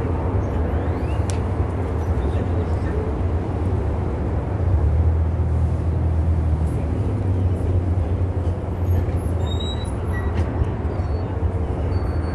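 Steady low rumble of outdoor background noise, with a hiss above it.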